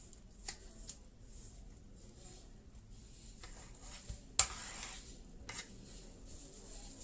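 Flour mixture being mixed by hand in a stainless steel bowl: a soft rustling scrape with a few light clicks of hand or spoon against the metal, and one sharp knock on the bowl about four and a half seconds in.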